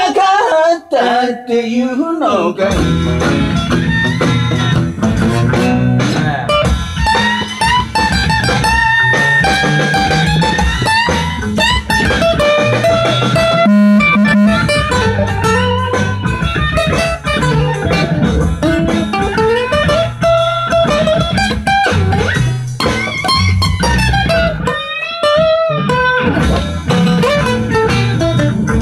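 Steel-string acoustic guitar playing a blues instrumental break: quick picked melody lines over repeating bass notes.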